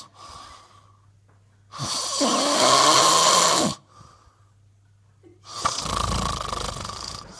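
A person snoring in their sleep: two long snores of about two seconds each, the first starting about two seconds in and the second near the end, with quiet gaps between them.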